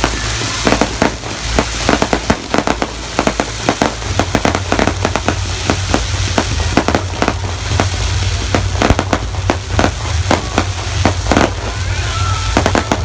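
Fireworks going off in quick succession: a dense run of sharp bangs and crackles throughout.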